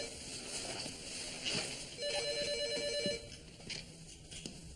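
A telephone ringing: a steady electronic ring of two close tones, about a second long, heard once in the middle. The end of the previous ring comes right at the start, so the rings repeat about every three seconds until answered.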